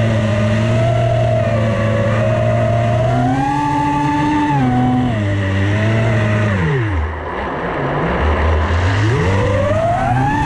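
FPV freestyle quadcopter's motors whining, the pitch rising and falling with the throttle. About seven seconds in the pitch drops steeply as the throttle is cut, then climbs back up over the last couple of seconds.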